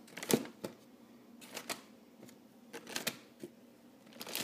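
Handling noise: scattered light clicks and knocks, about eight of them, as things are moved about on a stone countertop.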